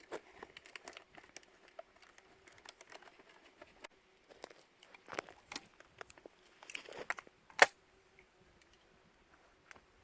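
Handling and reloading noises from a single-shot break-action shotgun: rustling, crinkling and small clicks, with one sharp click a little over seven and a half seconds in.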